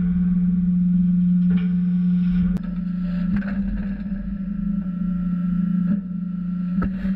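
Steady hum of a Steffen Systems large square bale slicing and de-stacking line running, with a few sharp metallic knocks from the machinery.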